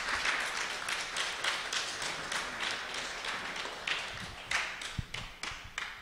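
Audience applauding: dense clapping that thins out to a few separate claps and dies away near the end.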